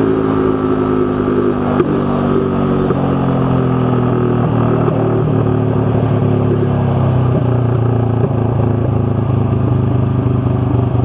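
Z200S motorcycle engine at high road speed through an open Akrapovic Evo GP exhaust. The engine note falls gently over the first several seconds, then holds steady.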